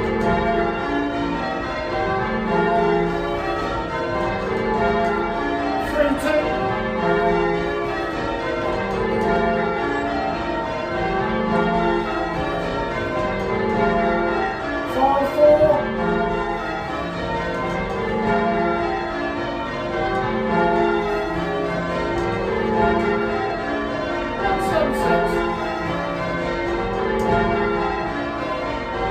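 Change ringing on a ring of eight church bells, mostly a 1937 Gillett & Johnston octave with two 1750 Thomas Wroth bells and a tenor in F. The bells strike one after another in a steady, even rhythm, with a few sharp clicks among the strokes.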